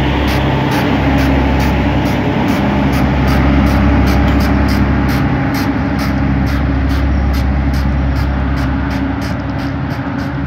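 Diesel engine of a Chinese-built rail track maintenance vehicle running steadily as it hauls a loaded flatcar away along the track, easing slightly near the end as it recedes.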